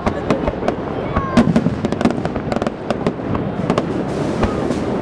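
Fireworks display: aerial shells bursting in a rapid, irregular series of bangs and crackles.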